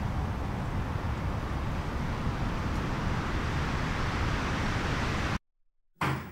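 Steady outdoor background rumble that cuts off abruptly near the end. After a short silence, a knock on a door begins.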